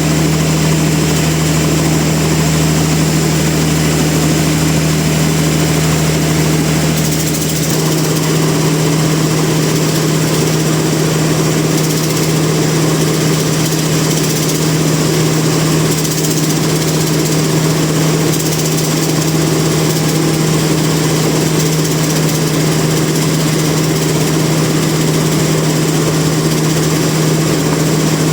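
Sawmill machinery running steadily: a loud, constant low hum with a steady tone and no separate cutting strikes, the deepest rumble easing slightly about 7 to 8 seconds in.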